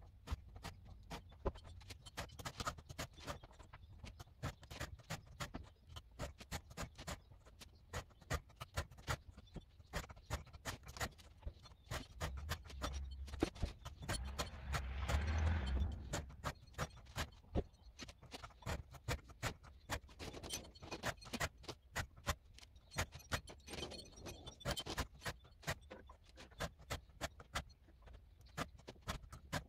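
Round chainsaw file in a file guide stroking across the cutters of a Makita chainsaw chain, a steady rhythm of short scraping strokes with sharp ticks, a couple each second. A louder rushing noise swells and fades about halfway through.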